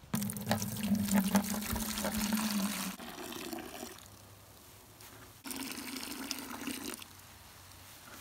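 White vinegar poured from a plastic gallon jug into a plastic bucket, splashing into the liquid already in it: one pour of about three to four seconds, then a shorter second pour about a second and a half later.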